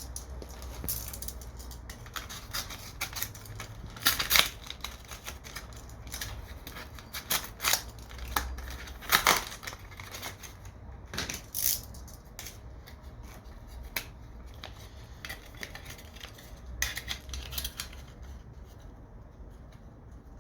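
Scattered clicks, taps and scrapes of small plastic and metal parts being handled during laptop disassembly, over a low steady hum.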